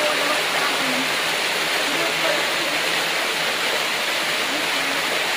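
Steady rush of water from a forest waterfall and stream.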